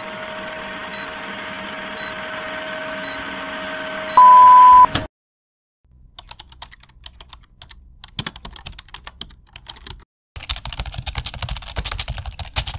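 Old film-leader countdown sound effect: projector hiss and hum with a faint tick about once a second, ending in a loud steady beep about four seconds in. After a second of silence, keyboard typing clicks that grow denser and louder over the last few seconds.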